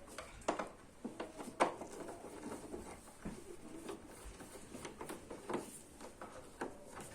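Irregular plastic clicks and knocks of hands unclipping and pulling off the plastic cover of a split air conditioner's indoor unit.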